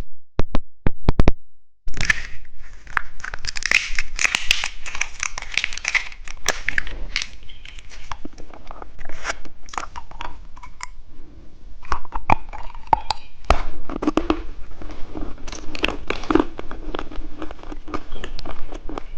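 Candy being crunched and chewed close to the microphone: a dense, irregular run of sharp crackling clicks.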